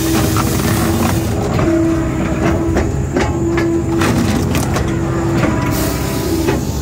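Posch K-650 firewood processor running: a steady machine drone with a humming tone that cuts in and out, while logs knock and crack as they are fed along the infeed. A harsher hiss drops away about a second in and returns near the end, as sawdust flies at the saw.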